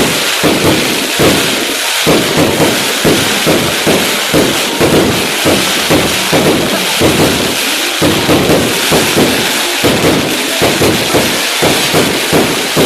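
Fireworks going off in rapid succession: a continuous crackling hiss with a steady run of dull thumps, about two a second.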